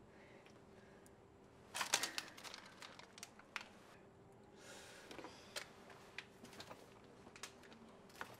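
Packets and plastic bags being rummaged through and handled: two spells of rustling with quick, sharp clicks and taps, the first starting about two seconds in. A faint steady hum runs beneath.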